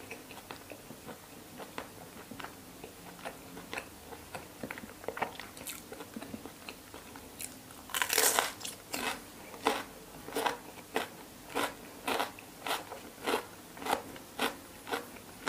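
Close-up eating sounds: faint, soft chewing at first, then about halfway through a loud crunching bite into a raw chunk of bitter melon, followed by steady crisp crunching chews, about one and a half a second.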